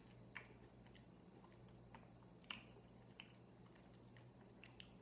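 A person chewing a mouthful of rocky road cookie, faint: a few soft, short mouth clicks, the clearest about half a second in and again about two and a half seconds in.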